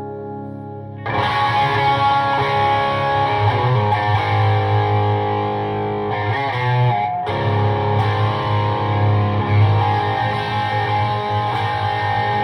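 Electric guitar played through a PRS MT-15 V2 amp head into a 1x12 cabinet with a Celestion Vintage 30 speaker, heard through the room. A ringing chord gives way about a second in to loud, distorted playing, which breaks off briefly just past the middle and picks up again.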